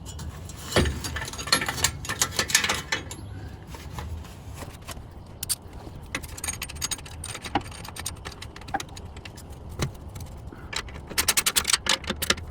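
Metal clinks and clicks from an exhaust clamp being fitted and tightened over the slotted pipe sleeve on a glasspack muffler, ending in a fast run of ratchet clicks near the end.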